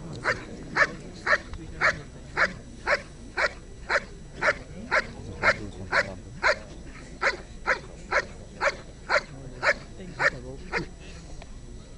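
A large black working dog barking steadily at a helper who stands still in a bite sleeve, about two barks a second: guard-and-bark, holding the helper in place. The barking stops about eleven seconds in.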